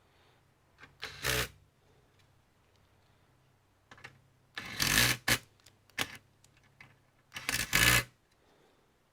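Computer parts being handled during disassembly or reassembly: three short bursts of clattering and scraping with a few small clicks between them, over a faint low hum.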